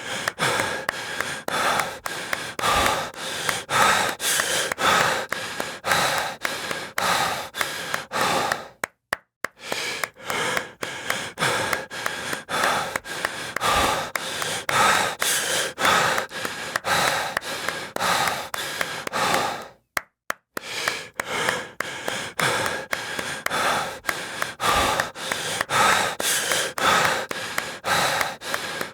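Heavy, gasping breathing over a quick, steady run of hand claps. The track breaks off twice for a moment, about a third and two-thirds of the way through.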